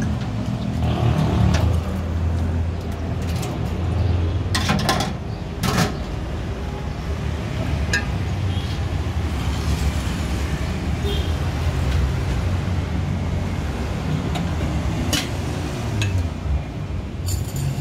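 Steady rumble of passing road traffic, with a few sharp clinks and knocks of glasses and utensils being handled.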